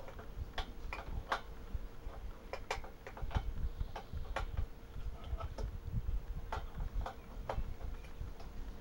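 Sharp metal clicks, irregularly one or two a second, from a wrench working a brass fitting loose as the safety valve comes off the air compressor's tank.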